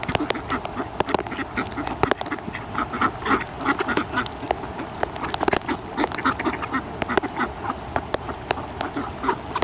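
A flock of mallards quacking and chattering over and over while feeding, with frequent sharp clicks from bills pecking scattered grain off the ground.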